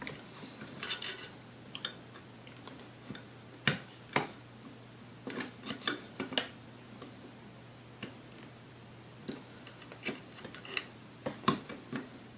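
Irregular light clicks and taps of small metal tools working inside an old mixer's motor housing, loosening and clearing around nuts buried in dust.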